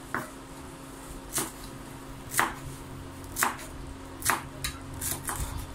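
Large kitchen knife chopping leafy greens on a bamboo cutting board: about six separate chops, roughly one a second.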